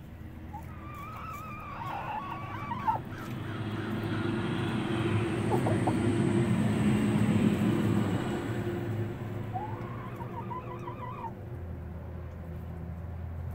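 Hens talking: a drawn-out, quavering call about a second in and another near ten seconds in, over a rushing noise that swells and fades in the middle.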